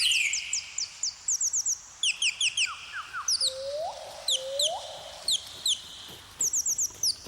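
Birdsong: many quick, high downward-sweeping chirps in rapid runs, with two lower rising calls about three and a half and four and a half seconds in, over a faint steady hiss.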